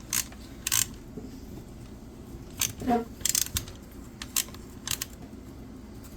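Steel sockets and hand tools clinking and clattering as they are picked up and tried, in a handful of short, sharp bursts with pauses between.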